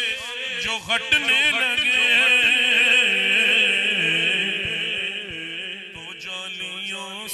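A man sings an Urdu naat into a microphone, unaccompanied by instruments. His long, melismatic phrases waver with vibrato and ornaments, then settle into longer held notes after about three seconds.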